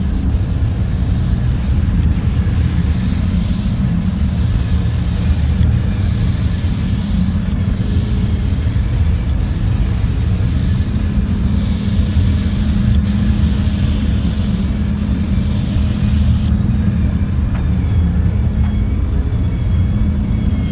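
Air spray gun hissing steadily over a low, steady hum. The hiss cuts off suddenly about three-quarters of the way through while the hum goes on.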